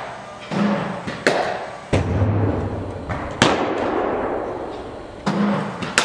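Cricket bat striking the ball with sharp, echoing cracks, about three times at roughly two-second intervals. Duller thuds come before some of the cracks, in the ring of an indoor practice hall.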